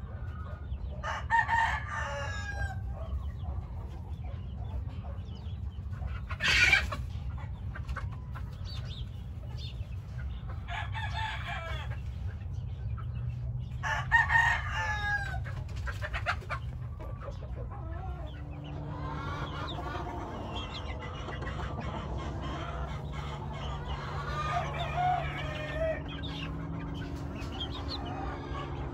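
Gamefowl roosters crowing three times in the first half, each crow about a second and a half long, with a short sharp sound between the first two. In the second half come overlapping clucks and calls, over a steady low background rumble.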